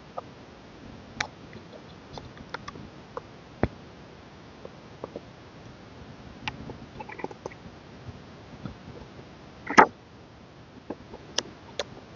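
Hands handling an album package and its inserts: scattered light clicks and taps, with one louder, brief rustle near the end.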